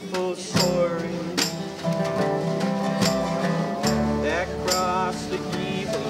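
Acoustic country-folk band playing an instrumental passage: dobro with sliding notes over strummed acoustic guitars, upright bass and a hand drum keeping the beat.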